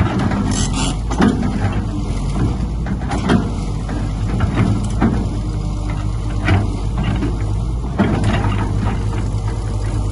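Heavy diesel earthmoving machine running steadily under load, with irregular metallic clanks and squeaks every second or two.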